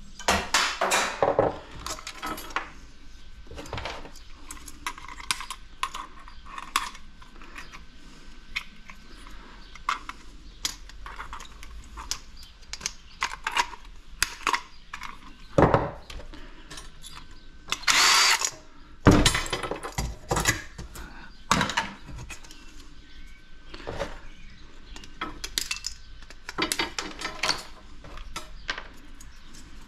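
Hand tools and small metal parts clicking and clattering on a workbench as a small motor housing is pried apart with pliers for scrap. A louder, rougher noise lasting under a second comes about eighteen seconds in.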